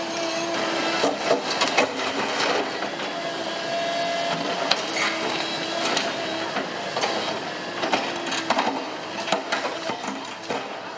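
Volvo tracked excavator breaking up a concrete and rock dam wall: irregular knocks, scrapes and clatter of the steel bucket against broken concrete and rubble, over the running machine's steady hum.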